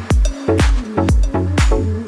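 Background electronic dance music with a steady kick-drum beat, about two beats a second, over a sustained bass line.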